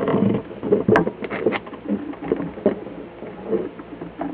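Scattered clicks and knocks of parts and the hand-held camera being handled, the sharpest about a second in, with a few brief low murmured voice sounds just after.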